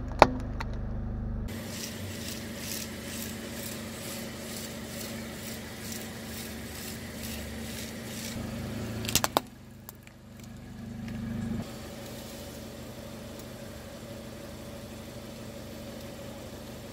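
A car tyre rolling over hard plastic toy centipedes, which give sharp cracks right at the start and again about nine seconds in, over the steady low hum of the car's engine.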